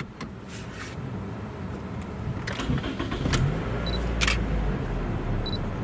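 A vehicle's engine running, a steady low hum that grows a little louder, with a few sharp clicks and two brief high beeps over it.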